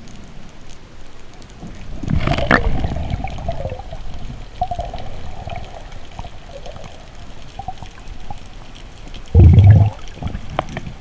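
Water gurgling and rushing around a GoPro, in uneven bursts, with a short loud low thump about nine and a half seconds in.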